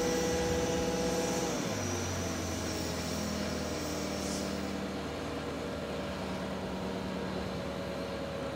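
Crane engine running steadily while the gate hangs on its chains; its note shifts lower about one and a half seconds in.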